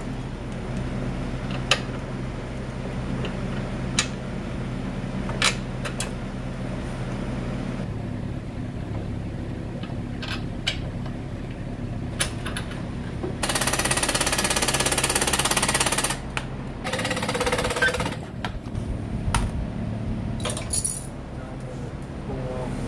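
Scattered metal clicks and clinks of bolts and tools over a steady low hum, then an impact wrench rattles for about two and a half seconds and again for about a second, running in the bolts that mount a replacement engine on a mini bike.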